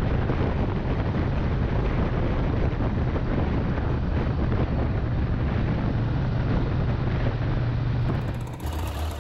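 Laverda three-cylinder motorcycle engine running steadily while the bike is ridden at a cruise, heard from on board with wind rushing over the microphone. The sound dips briefly near the end.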